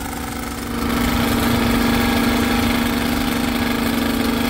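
Small portable petrol generator running steadily beside a street-food grill cart, a constant engine hum that grows louder about a second in and then holds.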